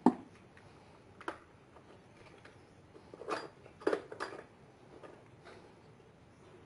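Hand tools clattering in a plastic toolbox as they are rummaged and handled: a sharp knock at the start, another about a second later, then a cluster of clinks and knocks around three to four seconds in.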